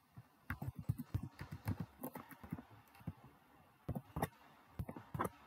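Typing on a computer keyboard: a quick run of keystrokes lasting about two seconds, then after a short pause two more small clusters of key presses.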